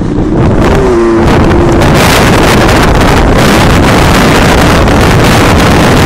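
Heavy wind rush buffeting the microphone on a moving small motorbike, with the engine running underneath. A short pitched whine sounds about a second in.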